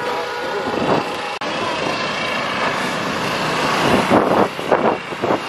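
Street traffic noise from passing vehicles, steady and loud, with louder uneven bursts near the end.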